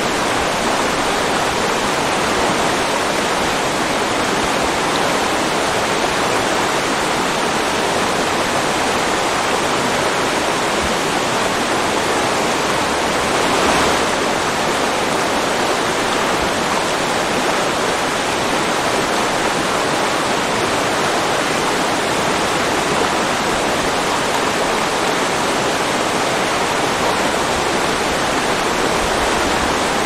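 Water pouring down a wide waterfall over a sloped wall and rushing across the shallow floor below: a steady, even rush.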